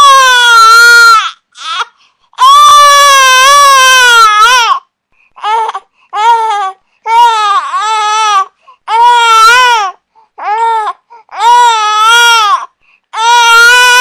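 Infant crying: a string of loud wails with a wavering pitch, each from half a second to two and a half seconds long, broken by short, completely silent gaps.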